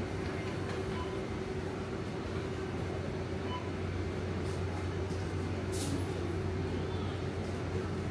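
Supermarket room tone: a steady low machine hum over faint background noise, with a brief high click about six seconds in.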